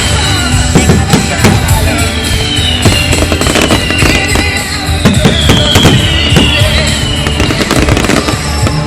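Fireworks display going off over loud music: a dense run of bangs and crackles, with several falling whistles.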